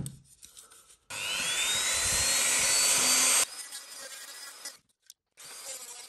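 A handheld rotary tool switches on about a second in, its whine rising as it spins up, runs for about two seconds and cuts off suddenly. It is followed by quieter, rough scraping as the bit grinds the plastic speaker housing to widen the micro-USB opening.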